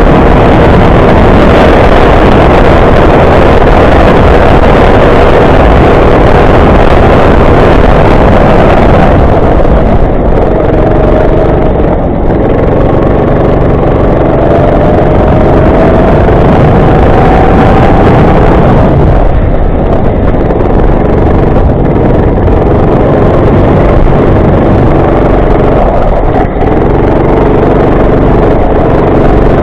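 Go-kart engine running loud and hard, its pitch climbing as it accelerates, with brief drops where the throttle is lifted about twelve, twenty and twenty-six seconds in.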